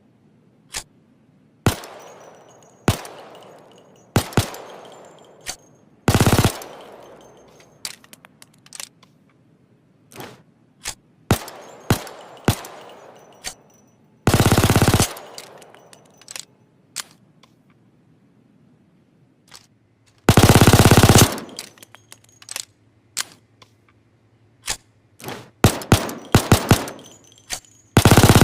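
CZ 75 Automatic, a select-fire 9 mm pistol, firing single shots and four short full-auto bursts, each shot trailed by a fading echo, with a quick string of shots near the end.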